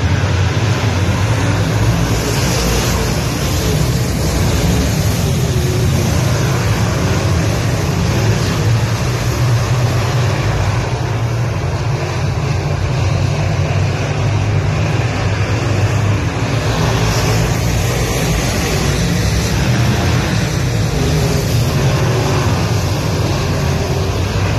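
A field of dirt-track semi late model race cars running together around the oval, their engines making a steady, dense drone.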